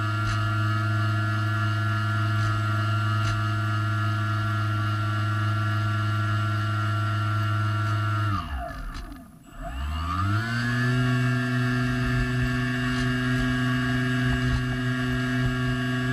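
Swamp Dawg radio-controlled airboat's motor and propeller running with a steady hum, heard close up from on board. About eight seconds in the throttle is cut and the pitch falls away almost to nothing. A second or so later it winds back up and settles at a slightly higher pitch.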